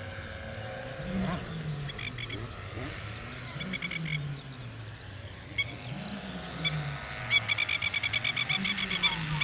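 Electric RC P-51D Mustang's motor and three-bladed propeller in flight, rising and falling in pitch with a rough, nitro-engine-like buzz; the onlookers later traced the noise to the spinner, which had come forward on the hub and was rubbing the foam. A fast, even clicking joins in near the end.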